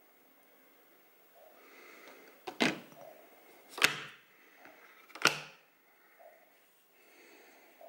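Glass lid of a slow cooker being set on the pot, knocking against the rim three times with a short ring after each knock.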